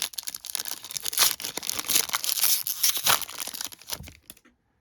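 A 2022 Topps Gallery baseball card pack's wrapper being torn open and crinkled by hand: a dense run of crackling rustles that dies away about four seconds in.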